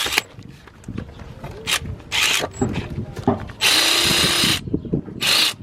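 Ratchet run in several short bursts on the 13 mm nut at the back of the alternator, loosening it; the longest burst lasts about a second, with tool handling sounds between the bursts.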